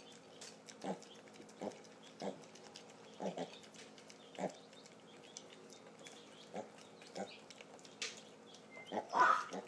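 Mini pigs grunting, short low grunts about once a second, as they eat dry pellets from a shared bowl, with faint crunching throughout. A louder, higher-pitched grunt comes near the end.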